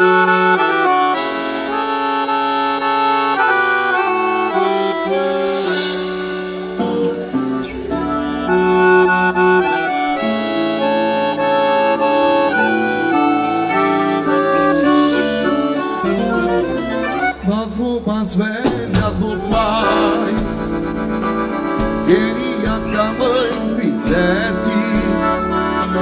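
Piano accordions playing the instrumental introduction of a gaúcho song, held melody notes over chords. The band's drums come in with a beat about eighteen seconds in.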